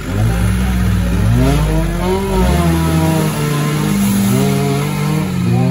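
Off-road 4x4 competition vehicle's engine revving hard, its pitch climbing and dropping several times as the driver works the throttle.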